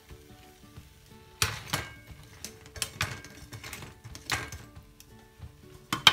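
Metal kitchen tongs clinking and knocking against a ceramic plate and a frying pan as fried sopes are set down, several sharp clatters with the loudest near the end. Soft background music plays underneath.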